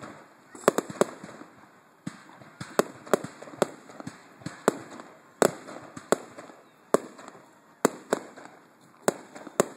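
Aerial fireworks shells bursting in a fast, uneven string of sharp bangs, about fifteen in all, each trailing off into a short echo.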